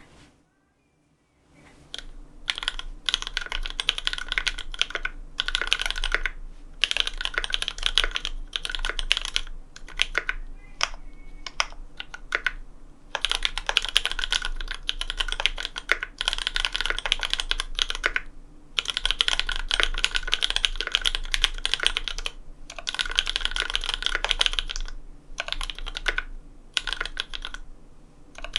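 A Cannonkeys Satisfaction 75 custom mechanical keyboard being typed on fast. It has an FR4 plate, PE foam, lubed Cherry MX Black switches with Kailh Cream stems, and GMK Shoko keycaps. The typing starts about a second and a half in and goes in quick runs of a few seconds with short pauses between.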